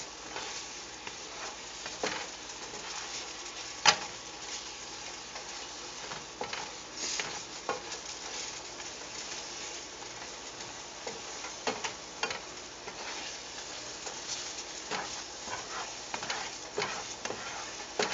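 Asparagus sizzling in garlic sauce in a metal skillet while a spatula stirs and scrapes through it, tapping the pan now and then, with one sharp tap about four seconds in.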